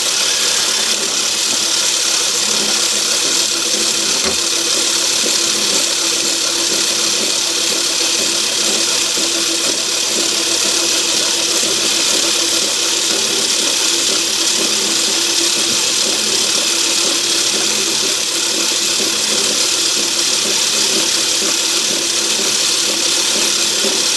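Myford ML7 metal lathe running steadily under power while screwcutting a thread, taking a light 5-thou cut: an even mechanical whirr with a strong high hiss.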